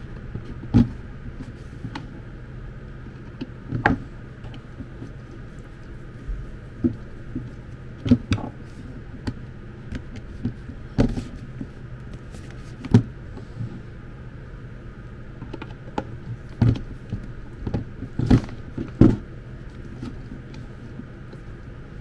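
Irregular clicks and knocks as a small self-tapping screw, a screwdriver and a stainless-steel electric kettle are handled on a table, over a steady low hum.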